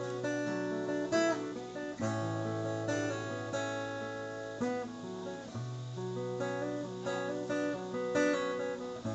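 Instrumental break in a slow Thai pop song: acoustic guitar playing over a held bass line whose note changes about every two seconds, with no singing.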